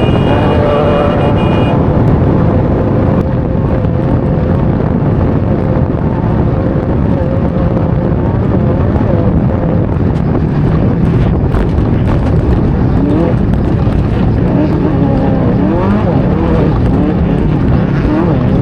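Off-road race vehicle's engine running hard, heard from on board, with a heavy low rumble and wind noise. In the last few seconds it revs up repeatedly.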